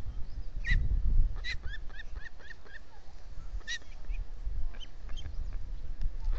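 Ospreys calling at the nest: a few loud, sharp chirps, with a quick run of shorter falling chirps at about four a second between them. A low wind rumble on the microphone runs underneath.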